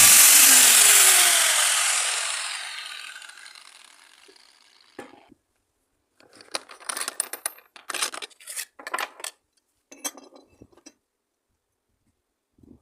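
Electric angle grinder winding down after being switched off, its whine falling and fading over about four seconds. Then come a click and a run of light metallic clinks and rattles from metal parts or tools being handled.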